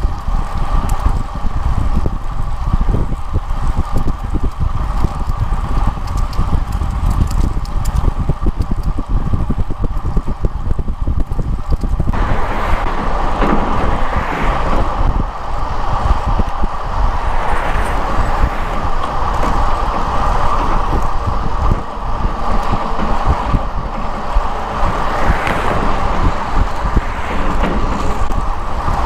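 Wind buffeting the microphone of a handlebar-mounted camera on a moving road bike, with tyre noise on asphalt and small knocks and rattles from bumps in the pavement. About twelve seconds in, a higher hiss grows louder and stays.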